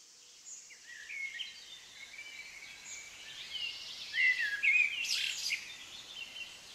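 Forest songbirds singing: a busy run of short, quick whistled chirps and trills, loudest about four to five seconds in.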